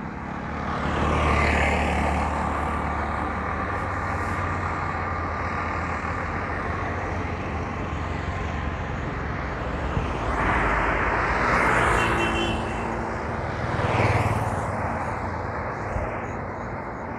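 Road traffic: a motorcycle passes about a second in, then a steady hum of engines and tyres, with more vehicles passing louder about ten seconds in and again a few seconds later.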